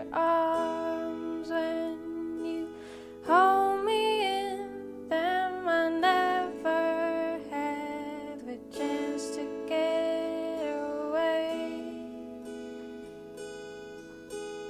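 Background song: a woman singing a slow melody over plucked guitar accompaniment.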